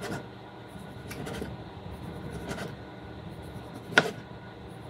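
Kitchen knife sawing through a tomato on a plastic cutting board: soft rasping strokes of the blade through skin and flesh, then a sharp tap as the blade reaches the board about four seconds in.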